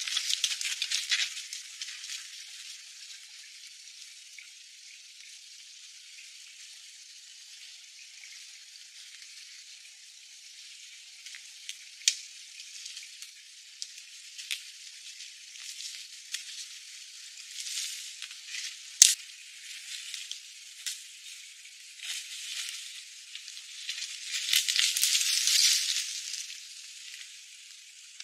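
Footsteps and rustling in dry leaf litter and undergrowth, with scattered sharp clicks and a louder stretch of rustling near the end. The sound is thin and tinny, with no bass.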